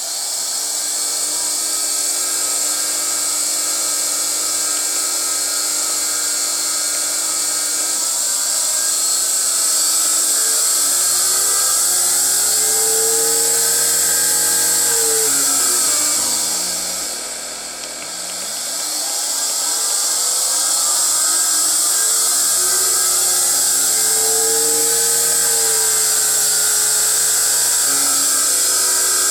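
An AC motor fed by a variable-frequency drive at 240 volts, with a steady high-pitched switching whine over the motor's humming tones. The tones step up early on, then, as the drive frequency is turned down about halfway through, they glide down until the motor nearly stops and glide back up as the frequency is raised again.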